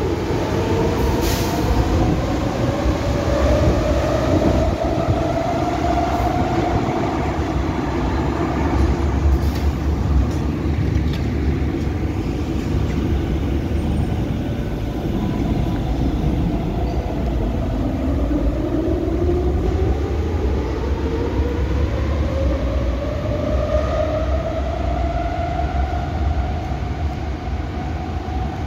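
Athens Metro electric trains pulling away over a steady low rumble: the motor whine rises in pitch over several seconds at the start, and again from about two-thirds of the way in.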